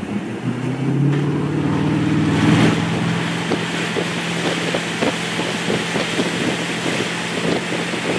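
Wakeboarding boat's engine accelerating, its pitch rising over the first couple of seconds and then holding steady, over rushing water and wind on the microphone as the boat tows a man through the water.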